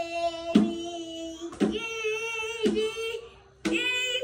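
A small child singing in long held notes, a new note about once a second, each beginning with a sharp attack.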